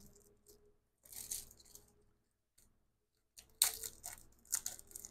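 Faint handling sounds of a small item and its packaging: a short crinkle about a second in, a quiet pause, then a quick run of light crinkles and clicks near the end.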